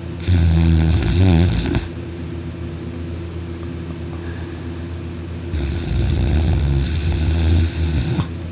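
Very loud snoring from someone sleeping on his back with his mouth wide open: two long snores, the first about a second and a half long, the second nearly three seconds, with a steady low hum between them.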